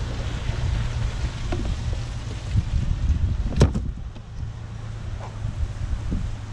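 Vehicle engine idling with a steady low hum, and a single sharp clack about halfway through, like a door or a picked-up item being handled.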